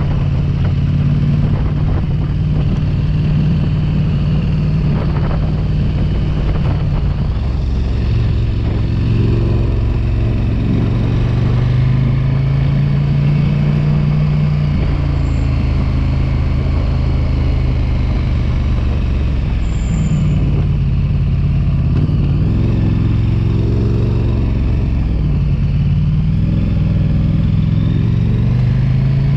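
Motorcycle engine running under way, its note rising and falling several times as the throttle and speed change.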